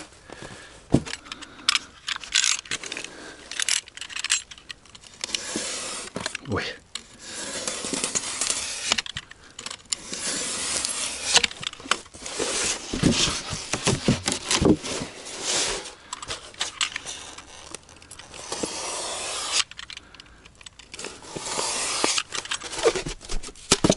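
Penoplex extruded polystyrene foam insulation boards being handled, a run of irregular rubbing and scraping noises with sharp clicks and knocks.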